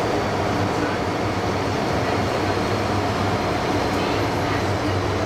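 Steady running noise heard inside an MTR Island Line subway car as the train travels through the tunnel, with the wheels and traction equipment giving an even hum and no distinct events.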